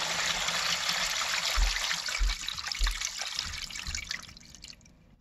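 Toilet-flush wastewater rushing and trickling through an ABS sewer drain line, a test of the newly glued joints for leaks. Several low thumps sound along the way, and the flow dies away near the end.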